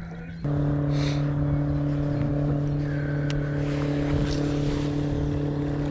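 A boat's motor running with a steady hum. It steps up and gets louder about half a second in, then holds there.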